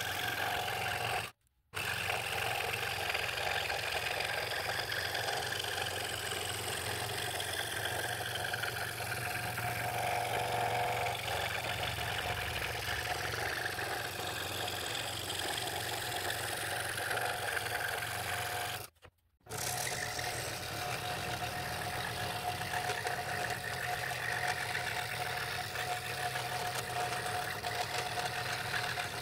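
Scroll saw running steadily, its fine blade cutting through a thin wood board just under a quarter inch thick. The sound cuts out briefly twice.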